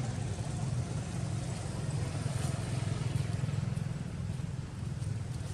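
Steady low hum with a faint hiss above it, unchanging throughout.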